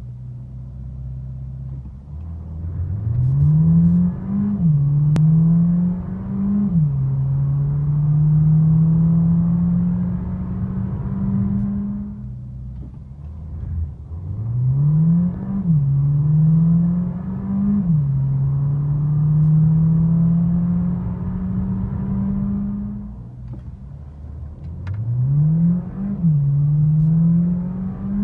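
Mercedes-Benz CLA 180's 1.33-litre turbocharged four-cylinder engine heard from inside the cabin under hard acceleration from low speed. The engine note rises, drops sharply at each of two quick upshifts, then holds steady before easing off. This happens three times, the last pull starting near the end.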